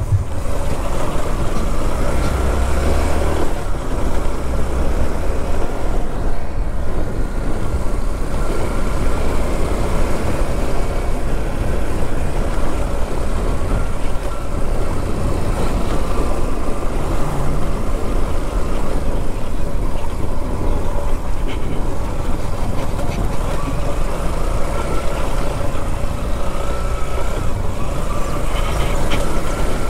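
Yamaha XTZ 150 motorcycle being ridden, its single-cylinder engine running steadily under a loud, even rush of wind and road noise.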